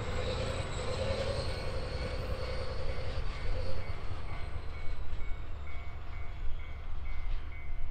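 JNR DE10 diesel-hydraulic locomotive working under load as it pushes a passenger train away, a low engine rumble with its higher engine note dying away about four seconds in as it recedes. A faint, evenly repeating high tone sounds in the background from about two seconds in.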